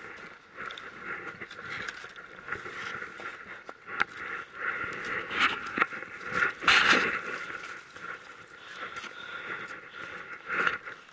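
A climber breathing hard on a steep snow climb at close to 11,000 feet. Boots and ski poles crunch and scrape in the snow in irregular bursts, the loudest about seven seconds in.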